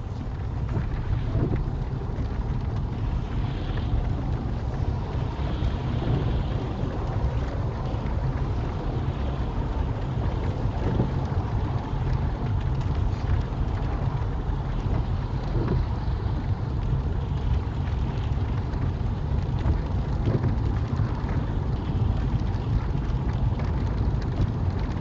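Road noise inside a small car driving on a motorway in rain, heard through the dashcam: a steady low rumble of tyres and engine under the hiss of rain and spray, with rain hitting the windscreen.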